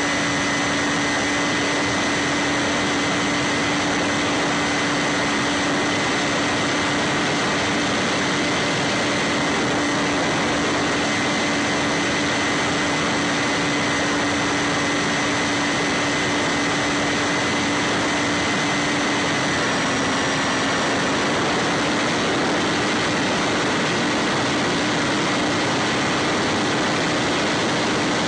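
Electric motor and pusher propeller of a Bix3 FPV model plane in flight: a steady whine over rushing wind noise. The pitch dips briefly about twenty seconds in, then comes back up.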